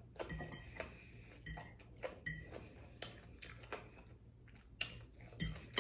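Close-miked eating sounds of fried fish: soft chewing and small wet mouth clicks, with a few light clinks of a metal fork on the plate, the sharpest click near the end.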